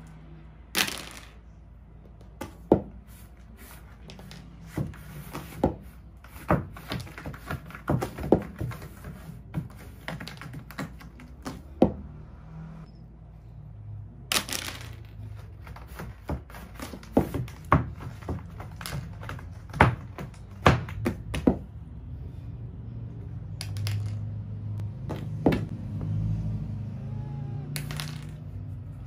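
Small hard plastic cat toys clattering on a hard floor and a cardboard scratcher as a cat plays: many sharp, irregular clicks and knocks, with a low hum in the last few seconds.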